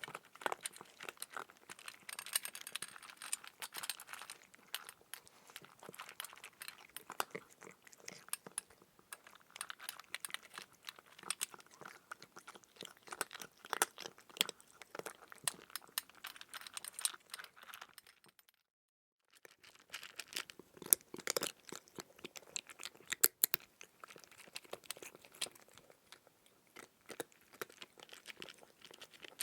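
A cat chewing food with rapid, irregular crisp crunches. The sound cuts out completely for about a second roughly two-thirds of the way through.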